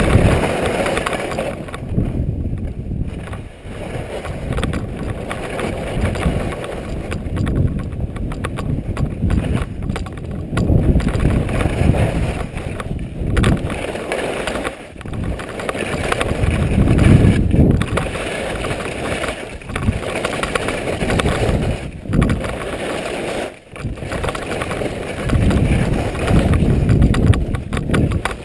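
Wind buffeting a GoPro action camera's microphone while skiing downhill, mixed with the skis scraping over snow. The noise rises and falls in swells every second or two.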